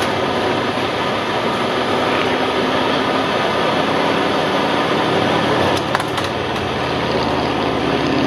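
A steady rough hiss, with the low drone of a propeller aircraft's engine coming up about halfway through, and a few light clicks about six seconds in.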